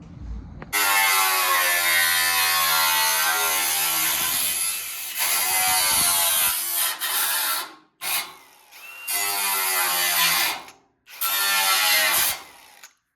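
Handheld power tool cutting the sheet-metal cowl panel to trim its overhanging edge. One long cut of about seven seconds, then a brief blip and two shorter cuts, each stopping abruptly.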